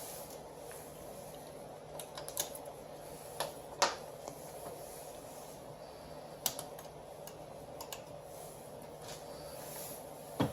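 Irregular light clicks and taps, a dozen or so spread unevenly, over a steady low machine hum.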